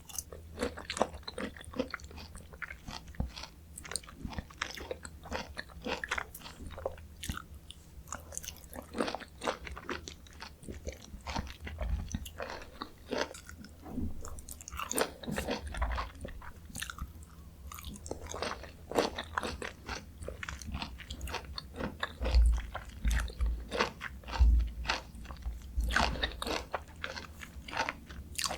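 Close-miked wet chewing of juicy mandarin orange segments, with irregular squelching and smacking mouth sounds. A few soft low thumps come in the second half.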